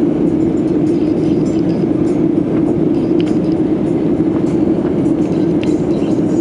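Steady cabin roar of a Boeing 737-800 under way, its CFM56-7B jet engines and the airflow heard from inside the passenger cabin.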